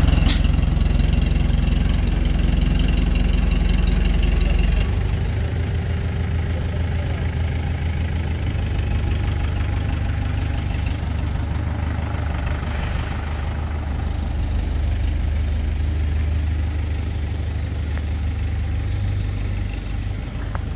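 An engine idling with a steady low hum; about five seconds in, its note changes and drops a little in level. A sharp click sounds just after the start.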